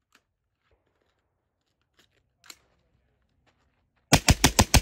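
Rifle fired in a rapid string of about six shots near the end, each one sharp and loud. Before it, only a few faint clicks and rustles of gear.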